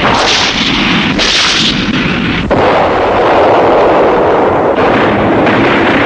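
Battle sounds of artillery fire and explosions: a loud, continuous din of blasts, with new blasts striking at the start, about a second in, and about two and a half seconds in.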